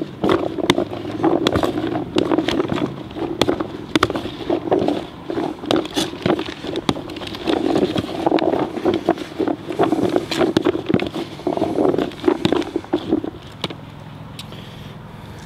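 Boilies being stirred in a bucket with a thick liquid food-source additive: a busy, irregular wet rattling and clicking of the hard round baits, which stops about thirteen seconds in.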